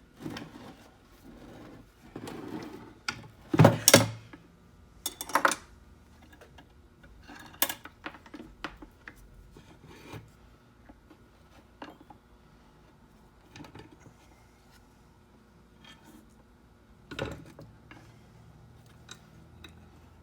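Tools and small metal parts clattering and rubbing as a key machine is taken apart, with a burst of loud knocks about three and a half seconds in and scattered clicks after.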